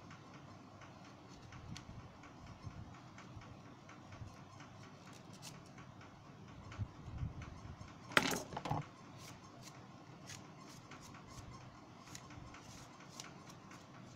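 Small tools and phone parts being handled on a wooden workbench: faint scattered clicks, a couple of soft knocks about seven seconds in, then a short clatter just after eight seconds as something is set down.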